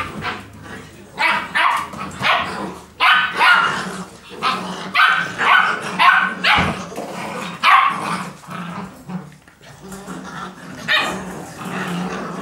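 Barbet puppies barking repeatedly in play, a string of short sharp barks coming one to two a second, with a brief lull near the end before the barking picks up again.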